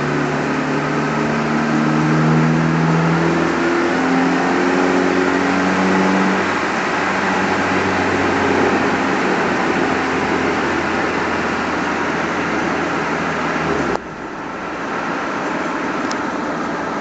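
Turbocharged Honda H22A VTEC four-cylinder running hard on a chassis dyno, its pitch climbing over the first several seconds and then holding high and steady. About fourteen seconds in the engine note cuts off abruptly, leaving a quieter steady rushing noise.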